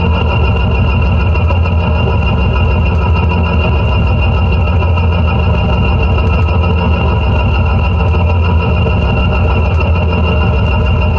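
Contact-miked garden fork with brass rods and springs, played through delay and reverb: a dense, steady drone of a strong low hum under layered sustained tones.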